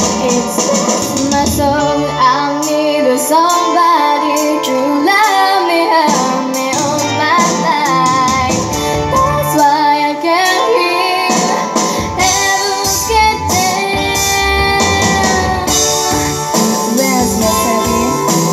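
A young female singer singing live into a handheld microphone, amplified, over instrumental accompaniment.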